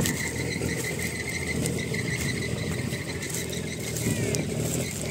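Engine of an M35A2 6x6 army cargo truck running steadily, a low even rumble, with a thin steady high tone over it.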